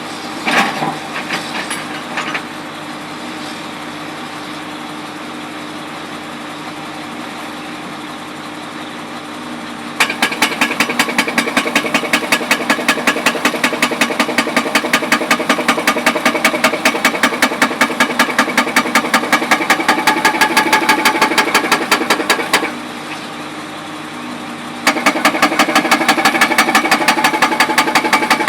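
Jackhammer breaking up old material, hammering in rapid, evenly spaced blows: a long run of about twelve seconds starting about ten seconds in, and another near the end. Between the runs a machine engine keeps running steadily.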